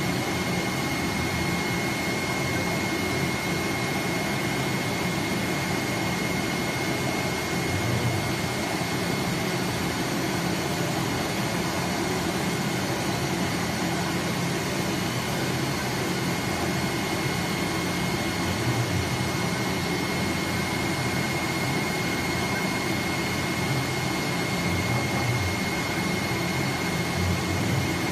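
AOKE DCH flatbed CNC knife-cutting plotter running while it whole-cuts 2 mm board: a steady machine noise with a constant high-pitched whine and a low rumble that swells now and then as the head moves.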